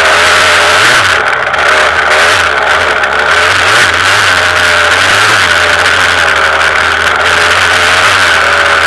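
KTM 200 EXC two-stroke single-cylinder enduro engine, freshly broken in, running under load on a trail ride, its revs rising and falling as the throttle is worked.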